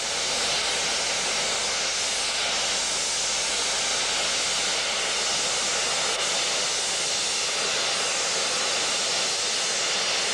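Steam locomotive letting off steam: a steady, loud hiss that runs unbroken without rising or falling.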